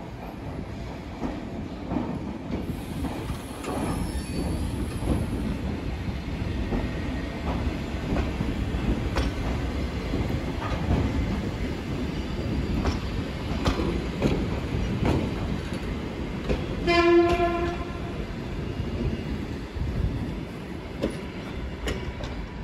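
Soviet-era ER2 electric train rolling slowly through the depot tracks, with a steady low rumble and scattered clicks as its wheels cross rail joints. About seventeen seconds in, a train horn sounds once, a single steady note lasting about a second.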